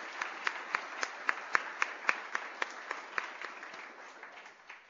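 Audience applauding in a hall, with one clapper close by standing out at about four claps a second. The applause thins and dies away near the end.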